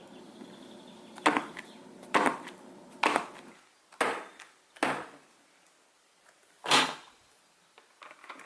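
Six sharp knocks of a hard object on a hard surface, about a second apart with a longer pause before the last and loudest, then a few light clicks near the end. A faint steady hum fades out after the first few knocks.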